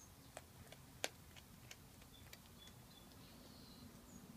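Cat chewing a rat, with a few sharp crunching clicks of bone being crushed in the first three seconds, the loudest about a second in.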